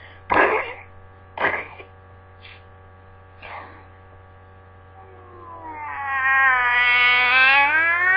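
Two short breathy vocal bursts, then from about five seconds in a long, wavering, cat-like yowl voiced by a person, sliding down and back up in pitch and growing louder, over a steady mains hum.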